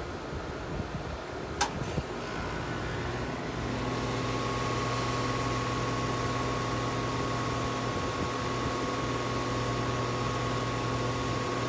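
Rheem central air-conditioner condensing units starting up for the first time this cooling season. A sharp click comes about two seconds in, and about two seconds later the compressor and fan come on and settle into a steady hum with a high tone above it.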